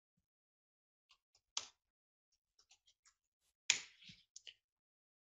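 Computer keyboard keystrokes: scattered soft clicks, with louder strokes about a second and a half in and about three and a half seconds in.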